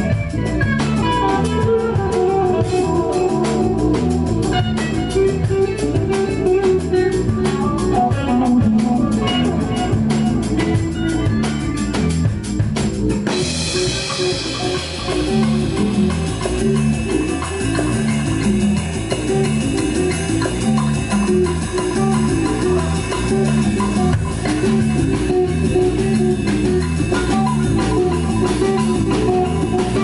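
Live rock band playing: electric guitar over a drum kit. Busy, even drumming fills the first half, then a cymbal crash about halfway through opens into a section with ringing cymbals under the guitar.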